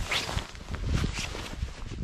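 Boots crunching through deep fresh snow, a few footsteps about half a second apart.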